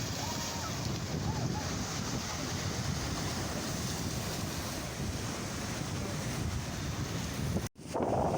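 Sea waves breaking and washing on the shore, a steady rushing noise, with a few faint high calls in the first second and a half. Near the end the sound cuts out abruptly for a split second.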